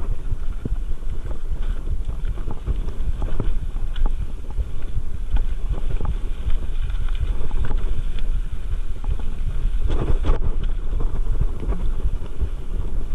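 Wind buffeting the microphone over the rattle and crunch of a mountain bike rolling down a rocky, gravelly singletrack, with frequent short knocks and clicks as the tyres hit stones.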